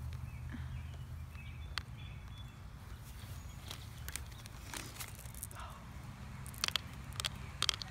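Scattered light clicks and crinkles from a Skittles wrapper being handled and candies tipped out over a plastic bottle of foaming cola, with a cluster of ticks near the end. A steady low rumble of wind on the microphone runs underneath.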